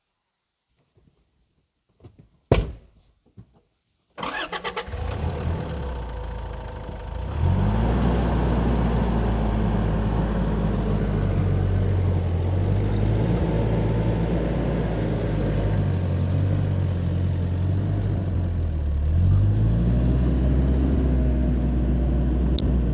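A single sharp click, then about four seconds in an engine cranks and starts. It runs steadily and revs up twice, once about seven seconds in and again near the end.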